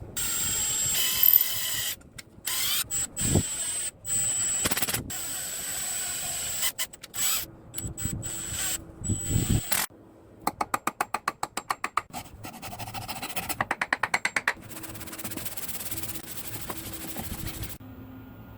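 Woodworking tool noise in short edited snippets: scraping and rubbing on wood, with a run of rapid even strokes, about eight a second, around the middle.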